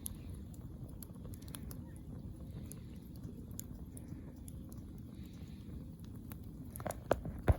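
Wood fire burning in a camping fire pit: scattered crackles and small pops over a steady low rumble, with two louder knocks near the end.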